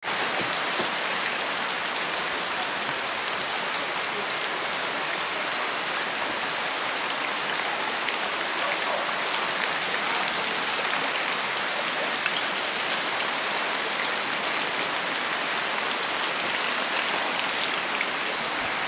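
Steady rain falling, an even hiss with faint scattered drop ticks throughout.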